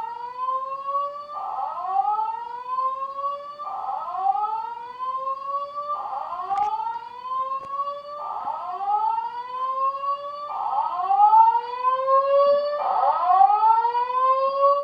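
Collector's fire alarm sounding a slow rising whoop tone, each sweep climbing steadily over about two seconds and repeating about seven times. It cuts off suddenly at the end.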